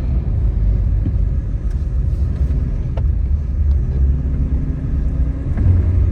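A vehicle running with a steady, heavy low rumble and no revving.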